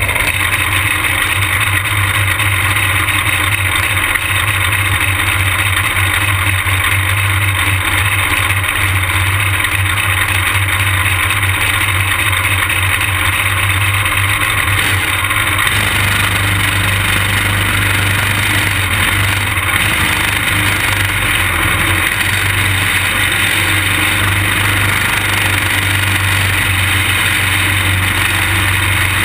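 Racing kart's small engine running steadily, loud and close, heard from the kart's own onboard camera. The sound changes about halfway through as the kart pulls away from the pit lane onto the track.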